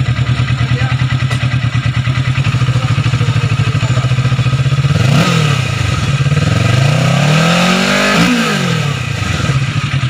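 2021 Kawasaki Ninja 650's parallel-twin engine idling with a steady, throbbing beat. It gives a quick blip of the throttle about halfway through, then a longer rev that climbs and drops back to idle.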